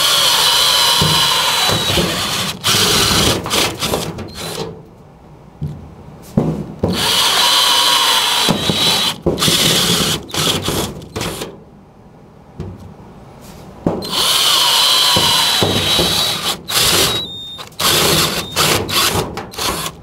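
Power drill boring three test holes through sheet-metal ductwork: three spells of loud, high whining drilling a few seconds each, with short clicks and knocks in the gaps between holes.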